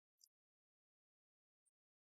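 Near silence, broken by two faint, very short clicks: one just after the start and one near the end.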